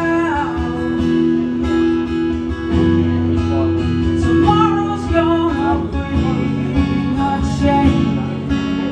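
Acoustic guitar strummed in an instrumental passage of a live song, steady chords with sustained low notes. A held sung note trails off at the very start.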